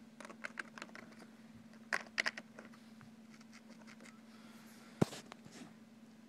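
Small clicks and scrapes of an HO scale model diesel locomotive being handled by hand and turned around on its track. There is a sharp click about five seconds in, over a faint steady hum.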